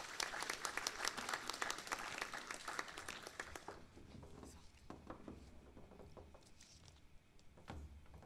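Audience applauding after a talk. The clapping fades about three and a half seconds in, leaving a few scattered claps.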